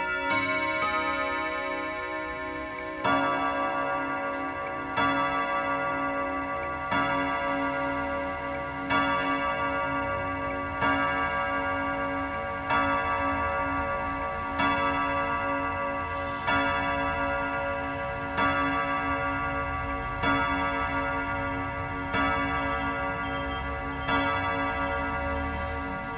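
ODO antique clock's eight gong rods struck by its hammers. A few quicker chime notes end the tune in the first three seconds, then come twelve slow strikes about two seconds apart, counting the hour. Each strike rings on with many tones over the clock's ticking.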